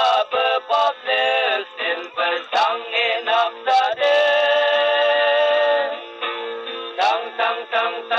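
A song with male singing over instrumental backing; the singer holds one long note about halfway through.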